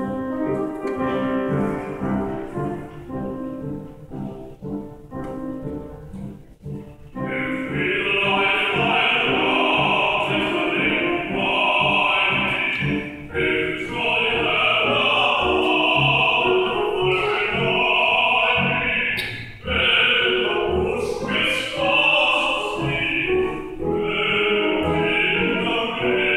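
A man singing solo in an operatic, classical style; the first several seconds are a softer passage, and from about seven seconds in he sings loudly and full-voiced.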